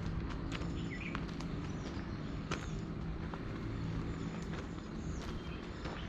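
Footsteps crunching irregularly on a hiking trail, over steady wind noise on the microphone, with a few brief bird chirps about a second in.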